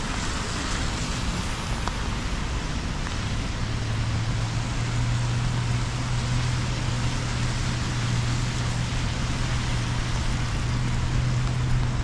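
City street traffic on rain-soaked roads: a steady hiss of tyres and engines on wet pavement. A low steady hum comes in about three and a half seconds in and holds.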